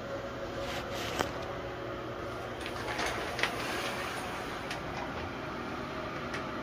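Shower curtain being pulled open, its metal hooks sliding and clicking along the rod in a few brief scrapes and clicks, over a steady background hiss.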